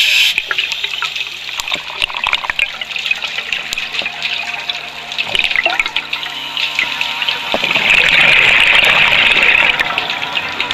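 Underwater sound on a scuba dive: a constant crackle of sharp clicks over a watery hiss, with a louder rush of scuba exhaust bubbles from about seven and a half seconds in.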